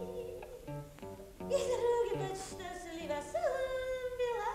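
Cartoon soundtrack music with pitched notes, some of them sliding up and down in the second half.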